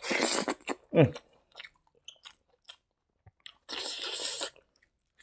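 Close-up mouth sounds of a person chewing a handful of food, wet and crunchy, loudest at the start and again near the end, with a short falling hum about a second in and faint clicks of the mouth between.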